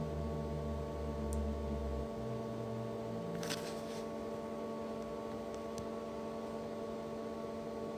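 Steady electrical hum made of several held tones, with a low drone underneath that stops about two seconds in and a brief rustle a little before halfway.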